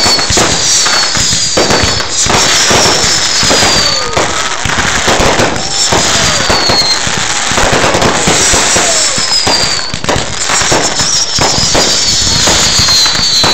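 Fireworks display going off in a steady barrage of bangs and crackles, with high whistles that fall in pitch recurring every second or two.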